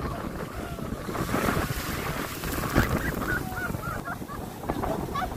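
Wind buffeting the microphone over the wash of sea surf. About three seconds in there is a quick run of short, wavering high calls.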